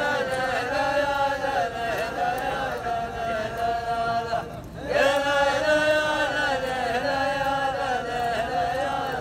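A row of men chanting a rajz line in unison, with long drawn-out notes, in two phrases with a short break about four and a half seconds in.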